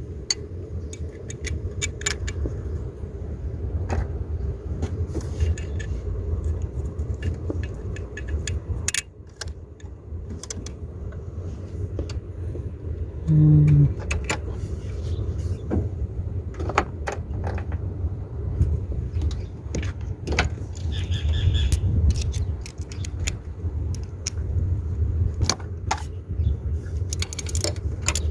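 Metal hand tools and parts clinking and tapping against each other while a replacement EGR valve is fitted to the engine. Under it is a steady low rumble, and there is a brief loud low tone about halfway through.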